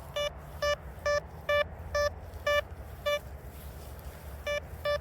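Detech Chaser metal detector beeping over a buried target as the coil is swept back and forth: a run of short, same-pitched beeps about twice a second, a pause of over a second, then a few more beeps near the end.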